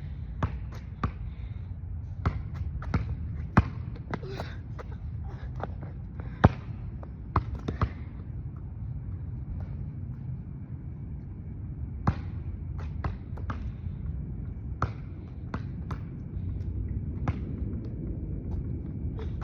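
Basketball bouncing on a hard court, sharp bounces at an irregular pace with a pause of a few seconds in the middle, over steady low background noise.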